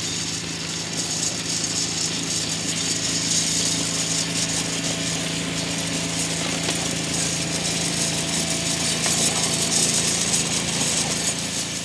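Utility vehicle (UTV) engine running steadily while driving across a field towing a broadcast seed spreader, with a steady high hiss and rattle over the engine hum. The sound cuts off suddenly at the very end.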